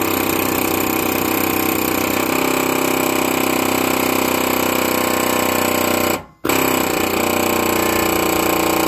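Pneumatic air hammer with a chisel bit running in a rapid, continuous rattle against a Honda GX390 engine's crankshaft and pump mounting, working loose a seized pressure-washer pump. It stops briefly about six seconds in, then starts again.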